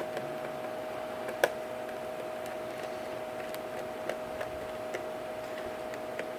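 Screwdriver working the bottom-cover screws of a Lenovo T560 laptop: scattered light clicks and ticks, about eight in all, the sharpest about one and a half seconds in. A steady faint high hum runs underneath.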